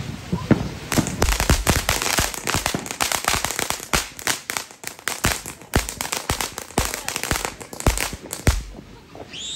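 Ground fountain fireworks crackling: a dense run of rapid, sharp pops that starts about a second in and stops shortly before the end.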